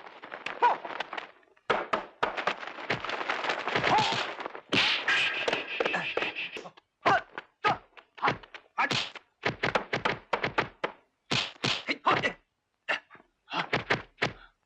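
Kung-fu film fight sound effects: a rapid series of sharp punch and kick impacts, thuds and whacks coming in quick flurries with short pauses between.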